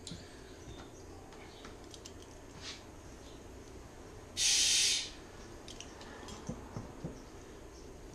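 A short hiss of compressed air, about half a second long, a little past the middle, as air is let into the mower tire to inflate it and seat the bead. Faint clicks and light knocks around it.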